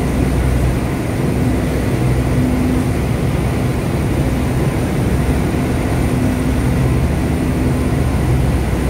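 Speedboat engine running steadily at high speed, a constant drone over the rush of water churning in the wake.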